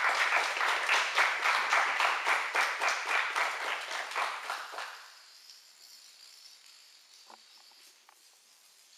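Dominoes toppling one after another around a spiral: a dense, rapid clatter that stops about five seconds in, leaving a few stray clicks.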